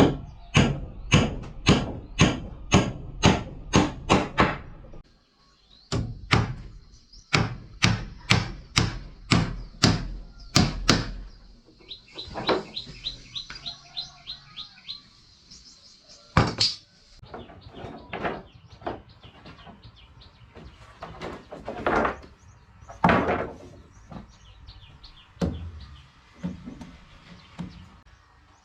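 Hammering on wood: two runs of rapid, regular blows, about three a second, then slower, scattered strikes. A bird gives a quick series of short chirps in a pause between them.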